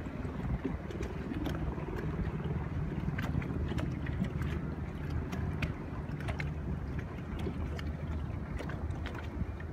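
Wind rumbling on the microphone, with scattered small clicks and splashes of water lapping against a boat's hull.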